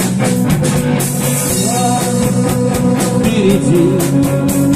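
Rock song with drums and guitar playing, and a voice singing a line in Russian near the end.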